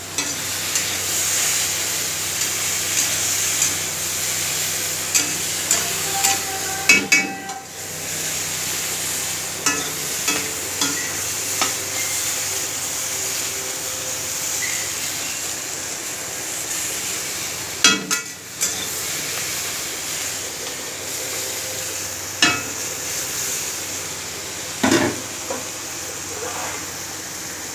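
Food sizzling as it fries in a pan, a steady hiss throughout, with scattered knocks and scrapes of a spatula stirring against the pan, the loudest a few times several seconds apart.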